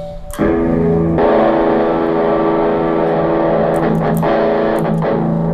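Electric guitar played through a multi-effects unit and fed directly into a computer's line-in: a chord struck about half a second in and left to ring, growing brighter about a second in, then cut off near the end.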